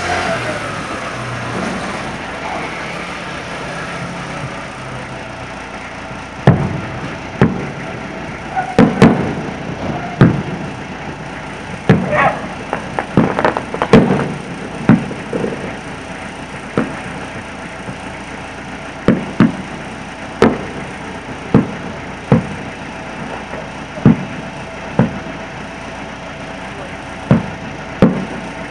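Aerial firework shells bursting in the distance: a couple of dozen sharp bangs at irregular intervals, some in quick clusters, each dying away briefly.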